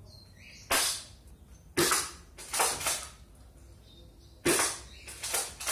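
Six sharp, irregularly spaced smacks of LARP projectiles striking steel LARP armour, each dying away quickly.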